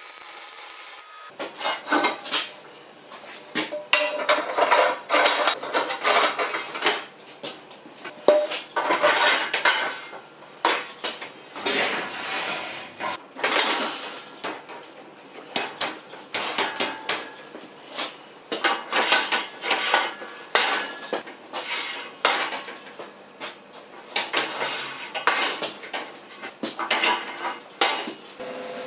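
Steel parts and tools clattering and knocking together: many irregular metal-on-metal impacts in quick clusters, each with a short ring.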